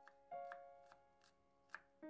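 A chef's knife chopping garlic cloves on a wooden cutting board: about five sharp knocks, roughly two a second. Soft piano background music plays underneath.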